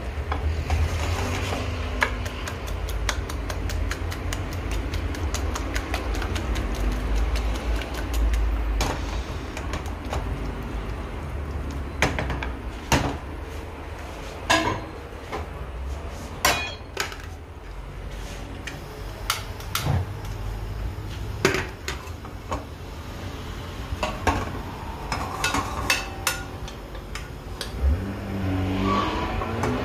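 Metal utensils clinking and tapping against a pan and dishes: a quick run of light taps for several seconds, then scattered single knocks, over a steady low hum.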